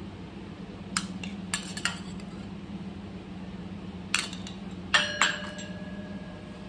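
Steel spoon clinking against stainless steel bowls while spices are spooned onto prawns: light taps about a second in, more near four seconds, and a sharper clink about five seconds in that leaves a ringing tone. A steady low hum underneath.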